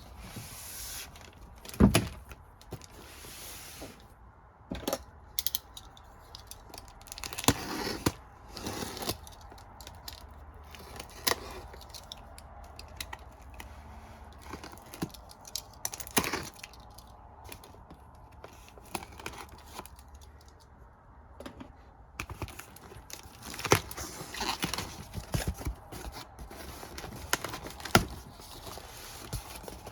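Boxes of Blu-ray and DVD cases being unpacked by hand: scattered clicks and knocks of plastic cases and short rustling, tearing bursts of packaging.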